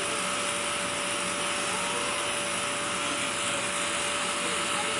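Electric blower fan keeping an inflatable water slide inflated, running with a steady whir and a constant hum.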